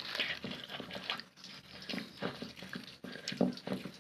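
Stone pestle grinding and scraping a peanut and palm-sugar paste against a stone mortar (cobek), in irregular strokes.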